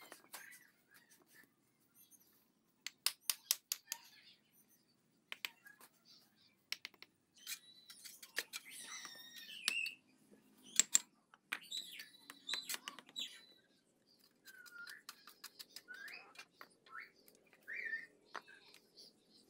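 Sharp clicks and knocks of bricklaying, a steel trowel tapping and bricks being set down, in several quick clusters. Small birds chirp in short gliding calls between them, most clearly in the second half.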